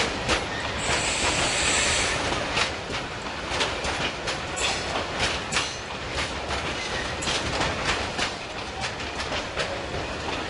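Freight train of open coal wagons rolling past, its wheels clacking irregularly over the rail joints. A brief high squeal from the train rises about a second in.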